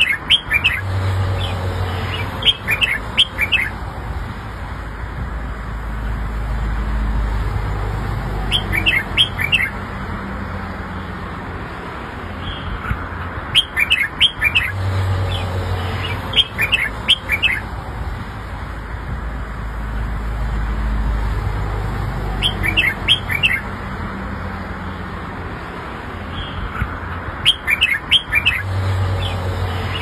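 Red-whiskered bulbul singing: short phrases of quick, chirpy whistled notes, a phrase every few seconds, over a steady low background rumble.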